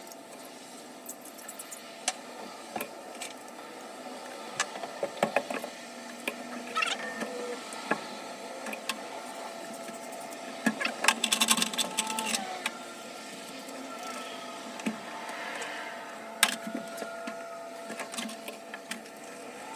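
Scattered clicks, taps and knocks of hand tools and metal parts during shower valve work, with a quick run of rattling clicks about halfway through. A faint steady tone sounds under the second half.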